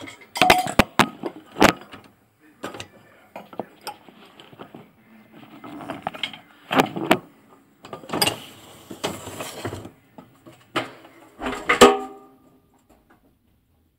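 Irregular clicks, knocks and rustling of things being handled, with a knock near the end that rings briefly, like something hard clinking.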